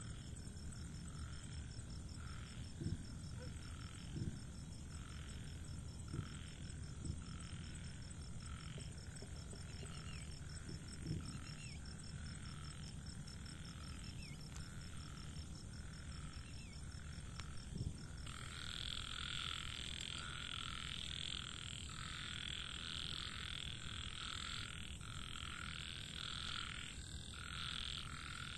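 Frogs croaking at night in a repeating chorus, which grows louder and denser about two-thirds of the way through. A thin, steady high insect trill runs beneath the first part, with a few soft low thumps.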